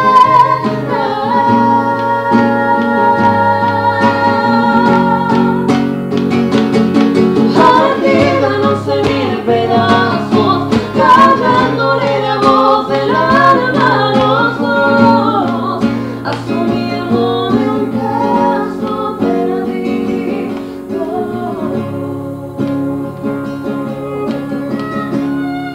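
Acoustic guitar accompanying singing in a folk song, with long held notes in the first few seconds and a moving melody after that.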